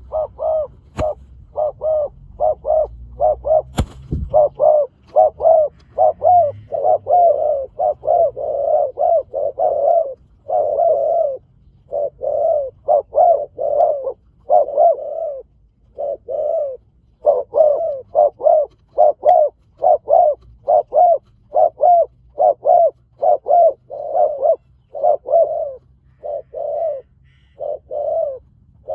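Spotted doves cooing in a long, fast run of short coos, about two to three a second with brief pauses. Two sharp clicks come in the first few seconds.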